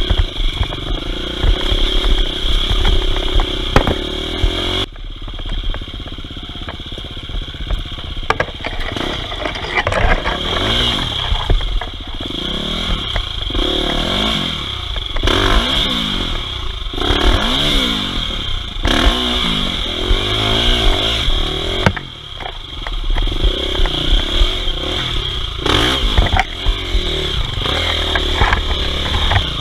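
Enduro dirt bike engine, heard close from the rider's own bike, revving up and down over and over as the throttle is worked on a rough climb, with rattling and scraping from the bike over rocks.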